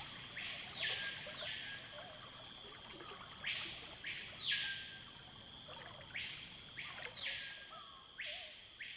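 Tropical forest ambience: an animal call that sweeps up in pitch, holds and falls back, four times, over a steady high-pitched insect drone.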